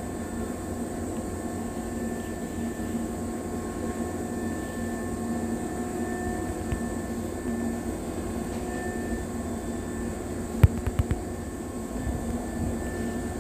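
Steady hum of a stationary Keisei 3500 series electric train, its onboard equipment and air conditioning running with a few faint constant tones. A short cluster of sharp clicks comes about ten seconds in.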